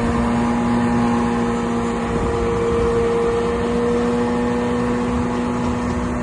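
Diesel engine of a DH17 C2 LGP bulldozer running under load at steady high revs, its pitch held.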